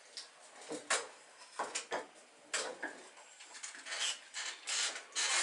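Scattered clicks and knocks of a wooden hull and hand tools being handled on a workbench, about a dozen separate taps with the sharpest about a second in.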